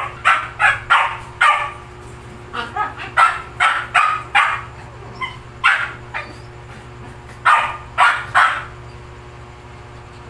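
Dog barking in short runs of quick barks with pauses between, over a faint steady hum.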